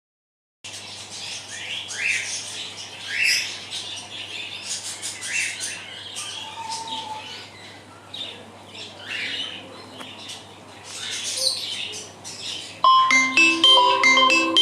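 Xiaomi Redmi Note 8 birdsong ringtone: repeated bird chirps and short rising and falling calls over a steady low hum and faint hiss. Near the end a louder ringtone melody of short, struck, bell-like notes starts.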